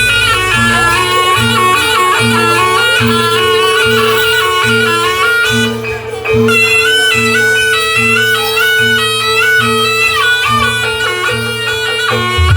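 Traditional music for a Barongan dance: a reedy wind instrument plays a stepping melody over a steady held drone, with a low drum beat about every 0.8 seconds. The melody drops out briefly about halfway through, then resumes.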